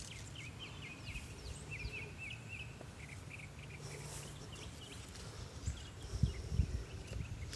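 Small birds chirping in quick short notes over a steady low rumble of outdoor background noise, with a few soft low thumps about six seconds in.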